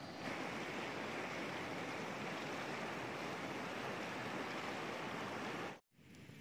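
Steady rushing of a river flowing over rocks, a constant hiss without rhythm; it cuts off suddenly near the end, leaving a quieter hiss.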